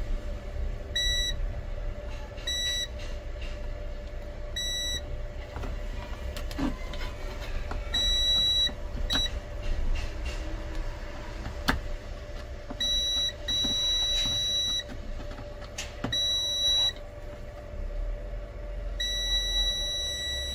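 Digital multimeter's continuity beeper sounding in an irregular run of high beeps, some brief and some held for a second or more, as its probes touch points on a motherboard: each beep marks a low-resistance path, the check for a short. A low steady hum runs underneath.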